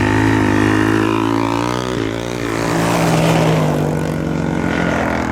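Car engine running hard, its revs falling about one to two seconds in and then holding steady, with a rushing noise in the middle as the car slides on the ice.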